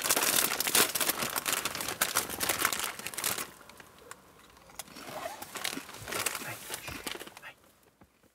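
A crinkly plastic chip packet being handled and rummaged in, a dense crackle, then chips crunched while being eaten about halfway through.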